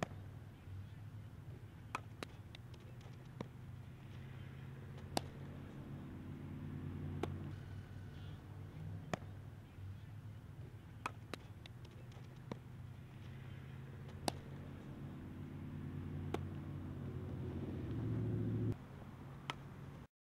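Sharp cracks every second or two as a softball is struck off a bat and caught in a glove during infield fielding practice, over a steady low mechanical hum like an engine running, which cuts off suddenly near the end.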